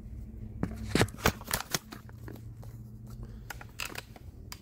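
Irregular sharp clicks and knocks, the loudest a little over a second in, over a low steady hum.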